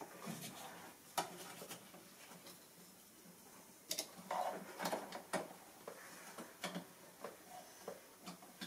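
Irregular clicks and light knocks of hand work on a car engine's wiring harness and connectors, busiest about four to five seconds in.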